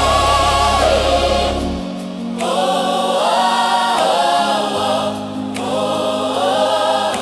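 Gospel music with a choir singing wordless sustained chords over keyboard and bass. The bass drops out about two seconds in.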